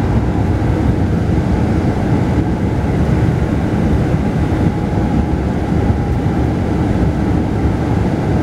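Steady running noise of a Mercedes-Benz O-500RSD double-decker coach under way, its engine drone and road rumble heard inside the upper-deck cabin.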